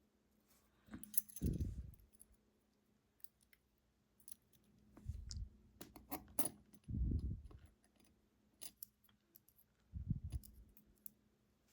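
Small metal lock parts (keys, pins and springs) clicking and ticking as they are handled and set down on a table, with a few dull handling thumps.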